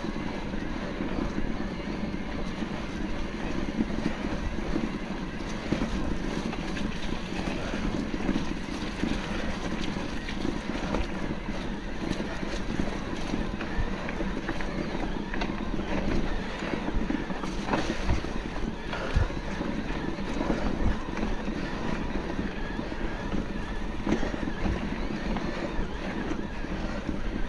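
Mountain bike riding along a rough trail: steady wind noise on the microphone over the rumble of the tyres, with scattered small knocks and rattles from the bike.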